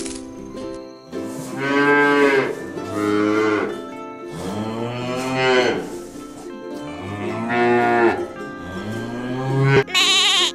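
Cattle mooing: about five long moos in a row, over soft background music. Near the end there is a short, wavering bleat.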